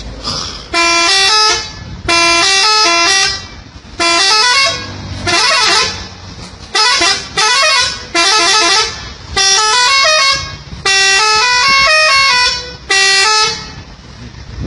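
A multi-tone truck horn sounding about ten short blasts, each stepping through several pitches like a short tune.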